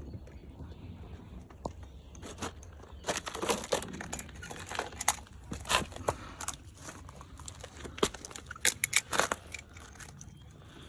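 Irregular crackling, clicks and scrapes from hauling in and handling a magnet-fishing magnet with its catch, a bolt and nut. The clicks are thickest in the middle and again near the end.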